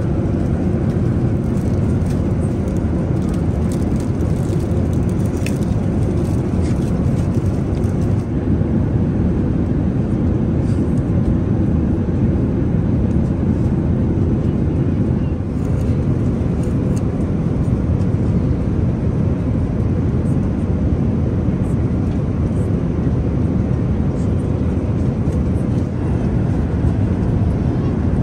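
Steady cabin noise of an Airbus A380 in flight: an even, deep rumble of engine and airflow. A few faint light clicks sound over it in the first several seconds.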